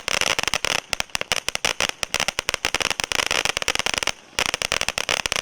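Garden firework fountain spraying with a steady hiss and dense, rapid crackling, broken by a short pause about four seconds in.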